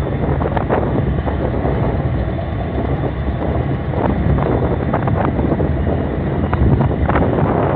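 Steady low rumble of a ship's engines running, with wind buffeting the microphone on the open deck.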